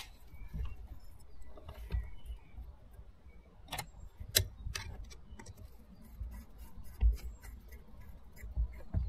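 Small clicks and taps of a screwdriver and metal parts as a screw is driven into a Trabant carburettor, with a few sharp clicks around four to five seconds in and low handling bumps.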